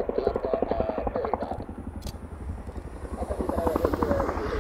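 CH-47JA Chinook tandem-rotor helicopter hovering low, its rotor blades beating in a rapid, even chop over the whine of its twin turboshaft engines. The sound dips a little past the middle and grows louder again near the end.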